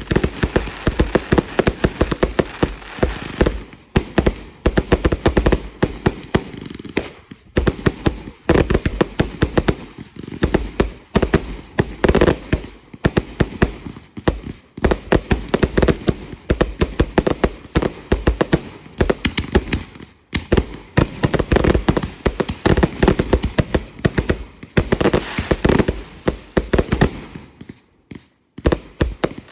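Consumer fireworks going off in a dense, rapid barrage of bangs and crackles, many reports a second. There are short lulls about twenty seconds in and again near the end.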